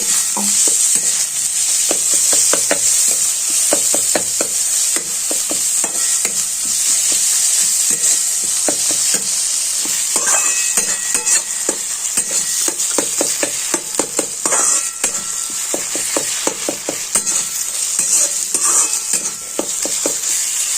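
Tulsi leaves and ginger frying in ghee in a kadhai, with a steady sizzle, while a spatula stirs and scrapes the pan with frequent clicks and a few brief squeaks.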